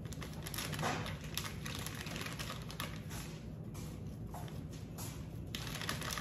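Clear plastic bag of flour crinkling and rustling in irregular bursts as it is shaken and emptied over a glass mixing bowl.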